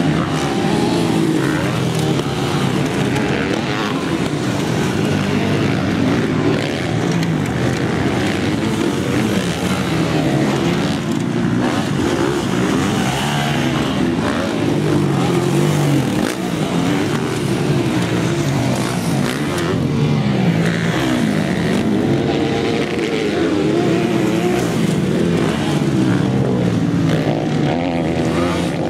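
Several motocross bike engines racing together, revving up and dropping back again and again, with their pitch rising and falling over and over.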